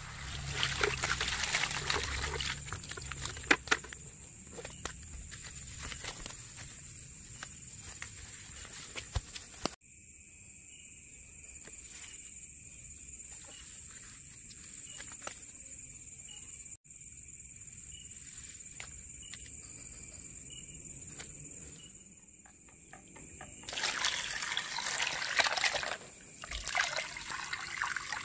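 Water splashing and sloshing with scattered knocks, then a long stretch of steady high insect chirping, then water pouring into a plastic basin holding live catfish near the end.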